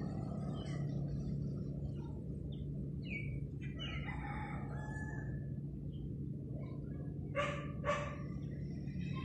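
Outdoor ambience: a steady low hum with scattered short animal or bird calls, a longer call about four seconds in, and two short sharp cries half a second apart near the end.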